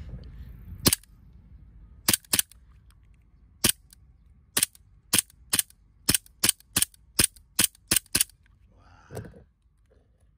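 KWC full-metal Colt 1911 CO2 airsoft pistol firing about fourteen single shots, each a sharp loud crack. The shots come a second or more apart at first, then quicken to two or three a second in the second half.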